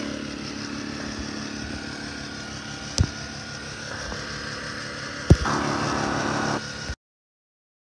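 Honda EU2000i inverter generator running steadily, with two sharp clicks about 3 and 5 seconds in and a louder stretch for about a second after the second click. The sound cuts off abruptly near the end.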